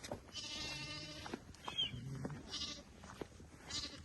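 Sheep bleating in a flock: one long, steady bleat of about a second near the start, followed by scattered short, fainter sounds from the flock.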